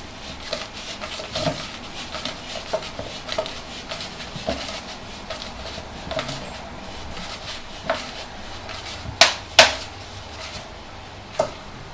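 Scattered light knocks and clicks of hard parts being handled and fitted together while a homemade airgun is assembled (water bottle, rubber washer, ball valve and pipe fittings). Two louder knocks come close together about three-quarters of the way through, and another near the end.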